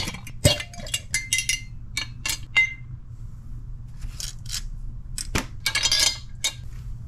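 Metal tongs clinking against a glass jar as steel bolts are lifted out of acetone: a run of sharp clinks in the first three seconds, some ringing briefly, then a few softer taps and a brief rustle as the bolts are set down on a paper shop towel. A low steady hum runs underneath.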